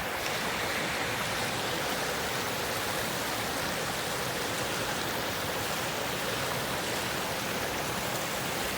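Small forest river flowing: a steady rush of running water.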